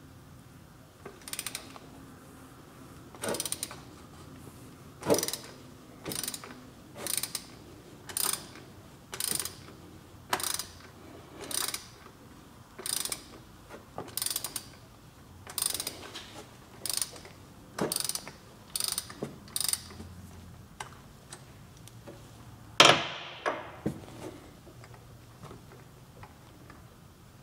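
Ratchet wrench with a long extension and 27 mm socket being swung to unscrew a cartridge oil filter housing, its pawl clicking in about sixteen short bursts, roughly one a second, until it stops about twenty seconds in. One louder sharp scrape comes near the end.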